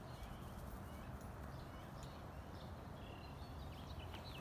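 Faint outdoor yard ambience: a steady low rumble with small birds chirping now and then, in short high calls that come closer together near the end.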